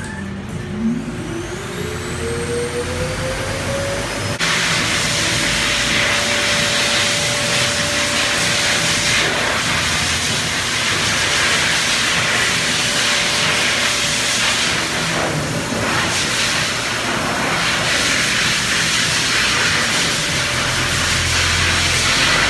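An electric motor spins up with a rising whine over the first few seconds, then runs with a steady whine. A loud rushing hiss comes in suddenly about four seconds in.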